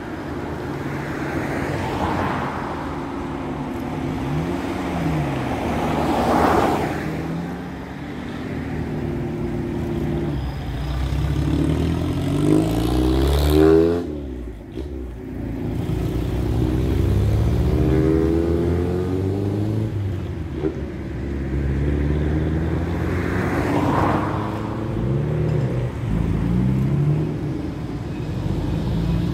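Classic cars driving past one after another, each engine rising in pitch as it accelerates by and fading as the next one comes.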